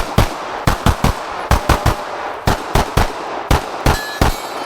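Rapid pistol fire from a Glock 17.5 on a practical-shooting stage: about fifteen sharp shots in quick pairs and triplets with short pauses between them, each with a short echo.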